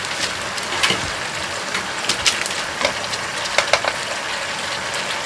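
Chicken pieces sizzling in a frying pan, with stainless steel tongs clicking against the pan and each other several times as pieces are picked up and lifted out.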